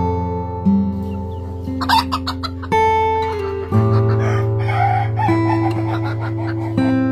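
Chickens clucking and a rooster crowing over acoustic guitar music: a quick run of short clucks about two seconds in, then a longer crowing call from about four to six seconds.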